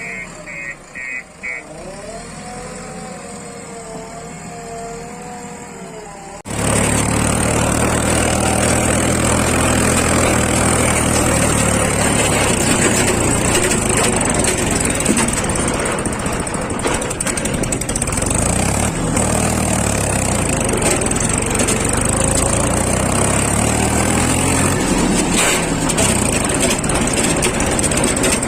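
Heavy diesel engine of earth-moving machinery running loud and steady from about six seconds in, starting abruptly. Before that, a quieter stretch opens with a quick run of high beeps.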